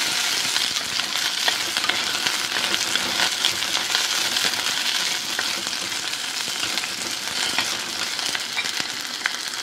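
Okra pieces sizzling in hot oil in a clay pot as they are sautéed, with a steel spoon stirring them and clicking against the pot now and then.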